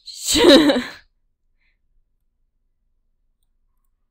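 A loud, breathy, voiced sigh of exasperation lasting about a second, then silence; it follows the text box refusing to drag out as it should.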